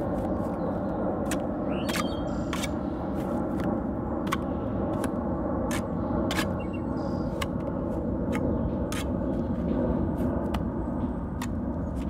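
Brick trowel scooping mortar and buttering the end of a brick, with irregular sharp taps and scrapes of the trowel on brick and mortar, over a steady low background rumble.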